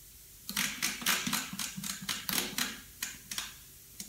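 Thermomix selector dial being turned, clicking quickly and irregularly through its detents as the timer is set.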